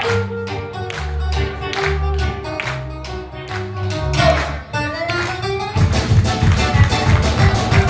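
Live band playing Cypriot-style music on plucked strings and guitar over bass and drums. About six seconds in, the beat turns louder and busier.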